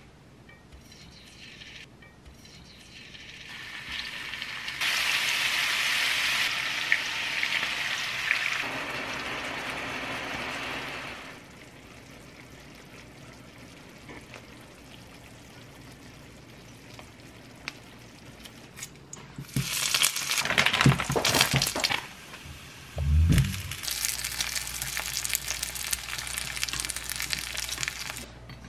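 Food sizzling in hot oil on a griddle and frying pan. The hiss comes in stretches, is loudest a few seconds in, turns to dense crackling later on, and is broken by one loud low thump.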